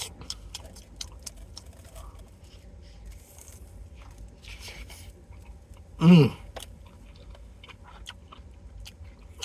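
Close-up chewing of a cheesesteak sandwich, with the crisp peppers crunching in many small clicks and crackles. About six seconds in comes a brief, loud vocal sound that falls in pitch.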